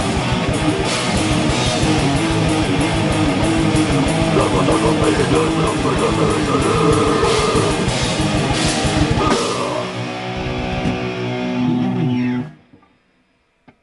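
Rock band playing live: electric guitars over a drum kit keeping a fast beat. About nine and a half seconds in the drums stop and the guitars let a final chord ring for about three seconds before it is cut off sharply.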